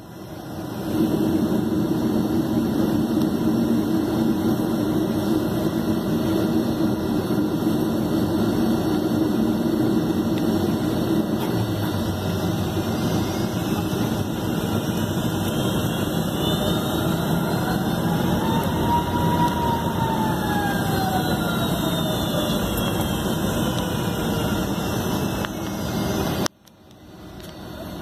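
Steady jet-engine hum and cabin noise inside a Boeing 757 taxiing. Near the middle a faint tone slowly rises in pitch and then falls away again. Near the end the sound cuts out suddenly and fades back in.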